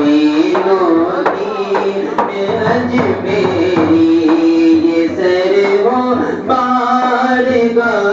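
A male voice sings a manqabat, a Sufi devotional song, in long, winding melodic phrases without clear words, over musical accompaniment.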